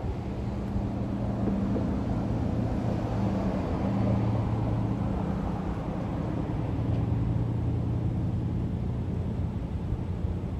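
A steady low hum and rumble of a running vehicle engine, swelling and easing slightly.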